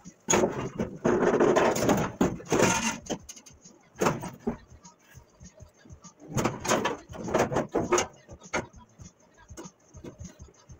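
Steel truck hood being lowered on its hinges and worked into place: metal scraping and rattling for the first few seconds, a single knock about four seconds in, then another run of clunks and scrapes.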